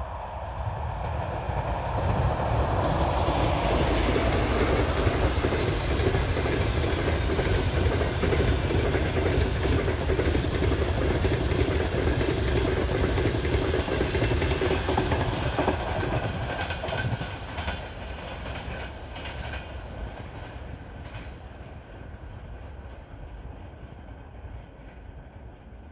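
EP2K passenger electric locomotive hauling a passenger train past: the rumble and wheel noise swell about two seconds in and stay loud, with a steady hum, as the locomotive and first coaches go by. Then the coaches click over the rail joints while the sound fades over the last several seconds.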